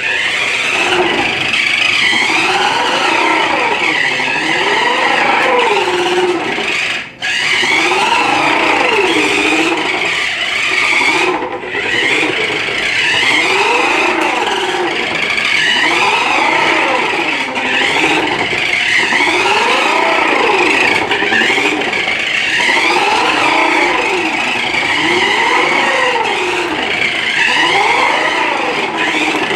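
Electric motor of a battery-powered toy remote-control car whirring, its pitch rising and falling over and over about every two seconds as it speeds up and slows down.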